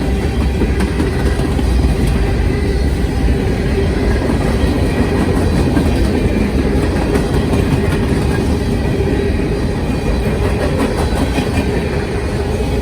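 Freight train cars rolling past at speed: a steady loud rumble of steel wheels on rail with a light clatter over the rail joints.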